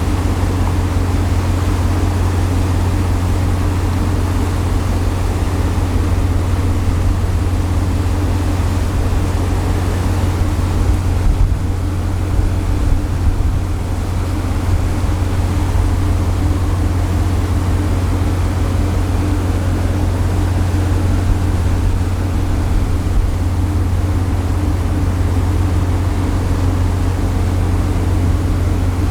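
Steady low drone of the Hahajima Maru cargo-passenger ship's engine heard from on board, with a constant rush of wind and water over it.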